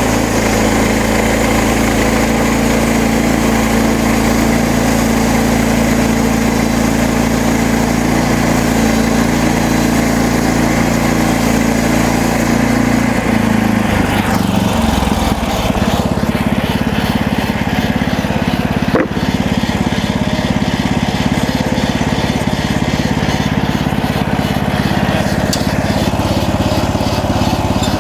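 Gas engine of a MechMaxx SM32 portable bandsaw mill running steadily. About halfway through, its note drops and it settles into a lower, more pulsing run.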